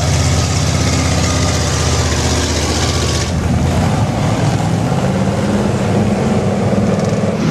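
Engine of a lifted Ford pickup mud truck on tractor tyres running as it drives on dirt. About three seconds in, the sound cuts to a steadier vehicle engine running, its pitch slowly rising.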